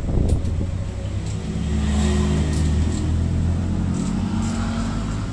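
A motor vehicle engine running close by, swelling about a second and a half in and easing off around four seconds, with scattered light metallic clicks from hand tools working on a scooter's front end.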